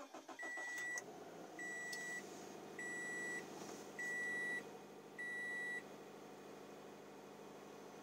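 A 2013 Subaru BRZ's 2.0-litre flat-four engine catches and settles into a steady idle after start-up. Over it a car warning chime beeps five times, evenly about once a second, then stops, and the idle carries on.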